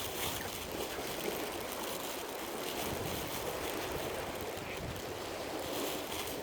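Steady wind and lapping lake water, with wind rumbling on the microphone.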